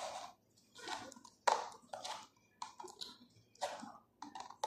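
Clear plastic cups being set down and slid into place one after another as a five-cup-base pyramid is stacked quickly: a string of light clacks and short scrapes, about a dozen in all.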